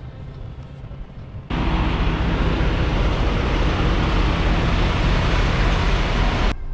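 Semi-truck running at a low rumble, then, about a second and a half in, a sudden jump to much louder, steady engine and road noise of the truck under way, which stops abruptly near the end.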